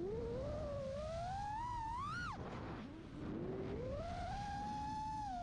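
FPV quadcopter's brushless motors whining, heard from the onboard camera, with the pitch following the throttle. It climbs to a peak about two seconds in and drops sharply as the throttle comes off, then climbs again and holds steady. A rush of wind and prop noise runs underneath.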